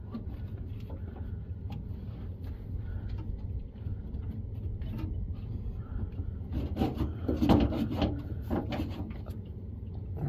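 Scattered knocks and scraping as a pickup's fuel tank resting on a jack is worked free from its snagged filler neck, busiest about seven to eight seconds in, over a steady low rumble.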